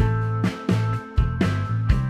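Background music: an upbeat tune with a steady beat, a new note or chord striking about every half second.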